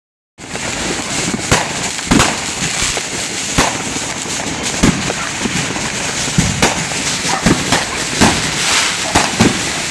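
Consumer fireworks going off in a neighborhood display: irregular sharp bangs and pops, roughly one a second, over a steady hiss of burning effects, starting about half a second in.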